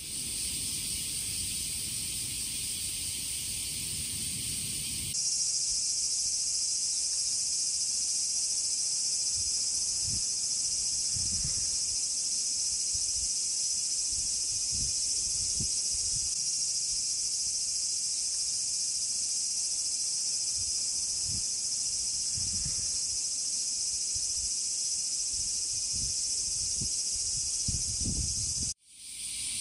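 Insects chorusing in summer: a dense, steady high-pitched drone. About five seconds in it changes to a louder, higher chorus. A few soft low bumps sit underneath.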